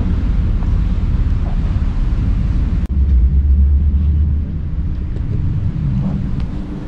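Fast passenger ferry's engines making a steady low rumble, heard from the open bow deck while under way. About three seconds in the sound drops out for an instant, and the low rumble then comes back louder for a second or so.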